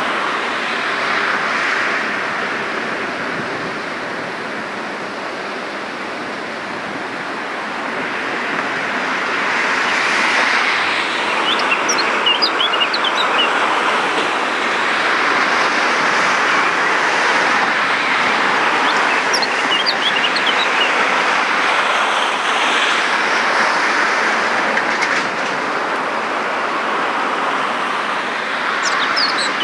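A steady rushing outdoor noise that swells and eases over several seconds, with a few short bursts of high bird chirps on top.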